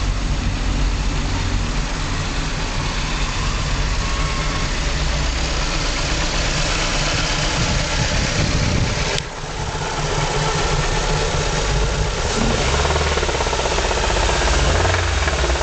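Ford Fiesta Zetec S 16-valve engine idling with a rhythmic knock from a spun bearing shell.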